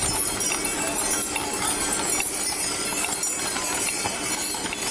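A team of black draught horses clip-clopping on asphalt as they pull a brewery wagon, their chained harness jingling, with irregular hoof strikes.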